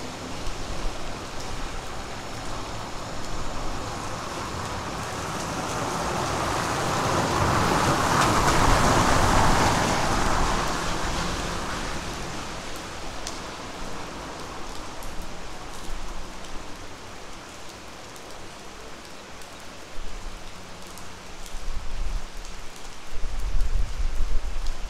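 Steady rain falling on roofs and the street. About eight to ten seconds in, the hiss swells and then fades. Near the end come uneven, closer drips and low bumps.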